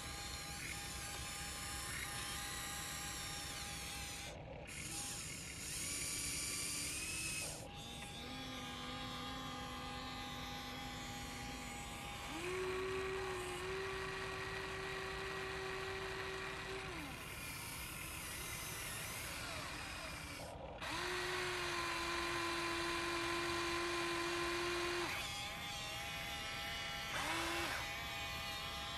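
Electric motors of a Huina RC excavator whining in several separate stretches of a few seconds each as the arm and boom move. Each stretch is a steady hum at its own pitch, and the last one near the end is only brief.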